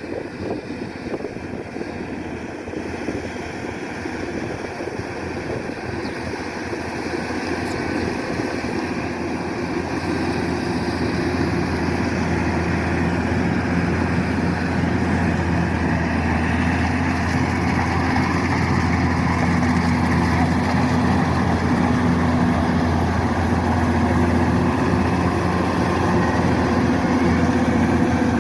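Kubota DC-105X combine harvester's diesel engine running steadily under load. It grows louder over the first ten seconds or so, then holds at a steady drone.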